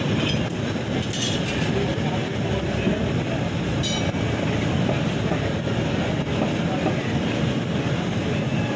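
Steady low rumble and sizzle of a katakat griddle cooking mutton, with short metal clinks of a spatula on the iron about one second and four seconds in.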